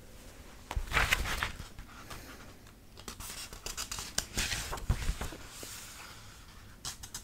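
Pages of a paperback book being turned and handled: bursts of paper rustling with small clicks, about a second in, again for a couple of seconds in the middle, and briefly near the end.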